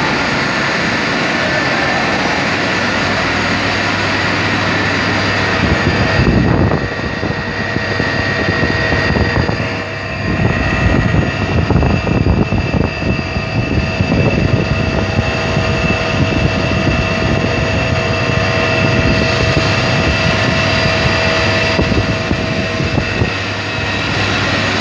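Three-spindle CNC milling machine running, its spindle motors giving a steady whine over a hum. From about six seconds in, the end mill cutting the metal block adds a rough, uneven grinding noise that goes on through most of the rest.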